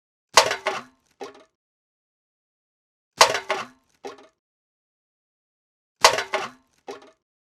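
A metal can thrown away into a bin, three times: each lands with a sharp clatter and a few quick rattles, followed by a smaller clink just under a second later.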